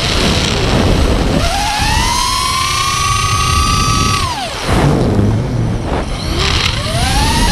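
Racing quadcopter's four brushless motors (Scorpion 2205, 2350 kV) with 5-inch three-blade propellers whining as the throttle changes. The pitch climbs steeply and holds high for about three seconds, drops sharply to low throttle about halfway through, then rises again near the end.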